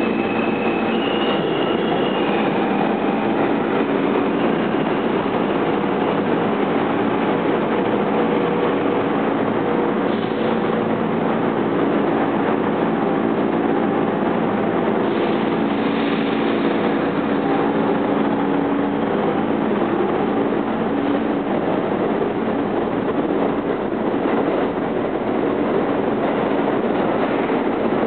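New York City R160 subway trains running in an underground station: a steady rumble of wheels and motors throughout. In the first few seconds the departing train's traction motors give a whine that rises in steps. Near the end the next train approaches.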